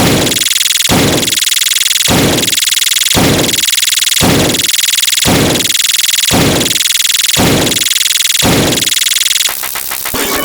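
Loud, harsh, distorted sound effect: a steady hiss with a falling sweep that repeats about once a second, about nine times. Near the end it switches to a quieter, rapid crackling pattern.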